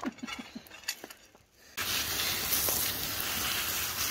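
Garden hose spraying water in a steady hiss that starts suddenly about two seconds in. Before it, faint scraping in gravel as a dog digs.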